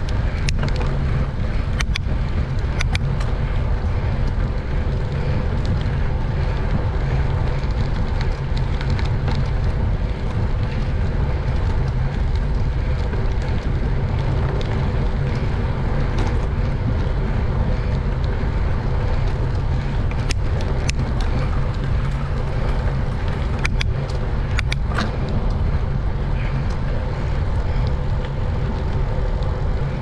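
Wind buffeting a GoPro's microphone while riding a bicycle, a steady low rumble, with a few brief clicks from the bike.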